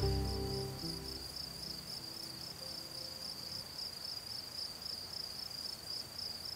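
A cricket chirping steadily in a fast, even pulse, while soft background music dies away during the first second.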